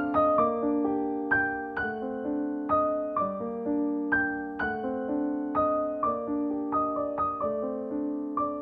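Background solo piano music, single notes and chords struck at an even pace about twice a second, each ringing out and fading.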